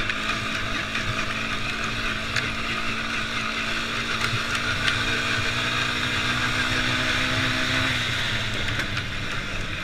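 Quad bike (ATV) engine running steadily as it is ridden along a dirt track, its note holding steady and then dropping a little about eight seconds in.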